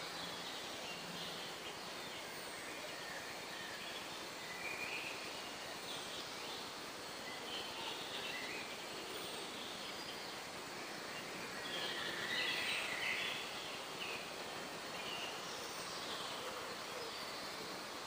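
Woodland ambience: a steady background hiss with scattered short bird calls and chirps, busiest about twelve seconds in.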